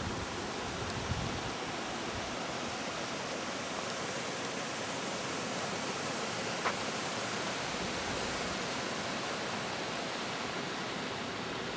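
Steady hiss of volcanic fumaroles venting steam from the crater floor, with one faint click a little past the middle.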